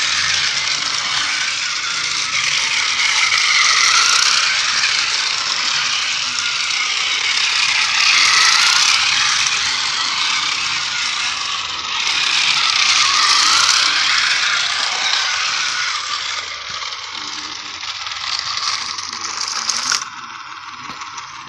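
A continuous loud rattling noise that swells and eases every few seconds and dies down near the end.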